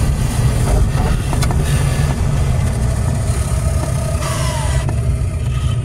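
Low, steady rumble of a car driving slowly, heard from inside its cabin.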